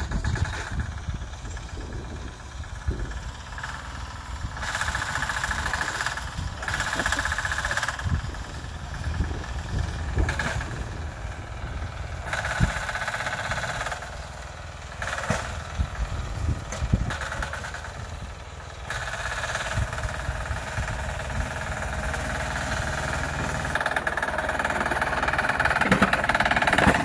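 Sears garden tractor's 6 hp single-cylinder air-cooled diesel engine running under load while plowing snow, its sound rising and falling in loudness, then steadier and louder near the end.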